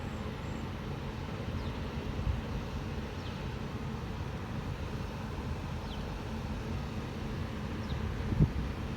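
Wind buffeting the microphone over a steady low rumble, with a stronger gust near the end and faint, short, falling high chirps every second or so.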